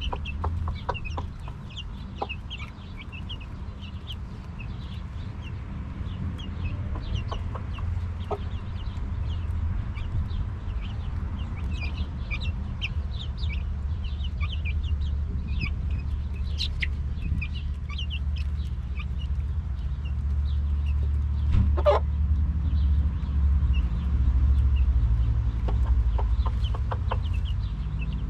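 Young chicks peeping: many short, high cheeps scattered throughout, over a steady low rumble. One sharp, louder sound comes about 22 seconds in.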